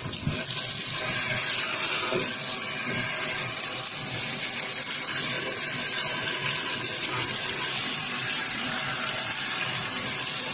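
Shark handheld vacuum running steadily, its motor and rushing air sucking up fluff, popcorn kernels and small craft bits from a carpet.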